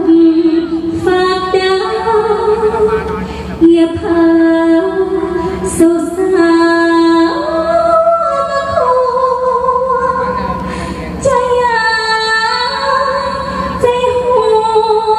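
A woman singing a Thai likay song in a clear voice into a microphone, holding long wavering notes, with musical accompaniment underneath.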